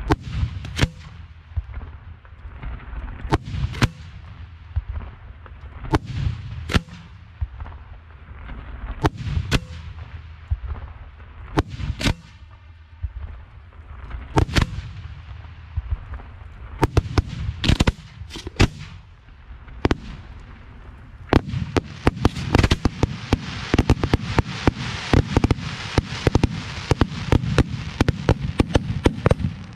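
Aerial firework shells firing and bursting close by: single sharp bangs a second or two apart, then, about two-thirds of the way through, a dense run of rapid bangs and crackling.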